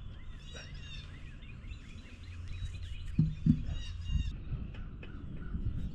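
Wind rumbling on the microphone, with a flock of birds calling repeatedly in the background during the first half and two short knocks a little past the middle.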